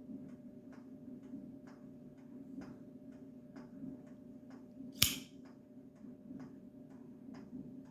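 Steady, even ticking, about three ticks a second, over a low hum, with one loud sharp click about five seconds in.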